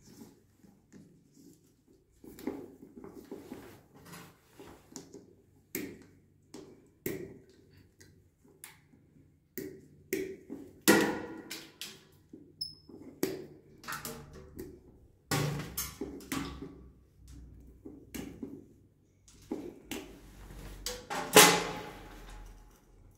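Irregular clicks, taps and rustling from hands and pliers working on electrical cable, stripping and twisting the wire ends. There are sharper snaps about halfway through and a loudest one near the end.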